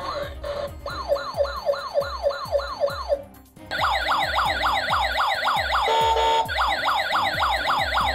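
Emergency-vehicle electronic siren on a fast yelp, about four sweeps a second. It breaks off briefly about three seconds in, then comes back louder, with a short steady tone about six seconds in.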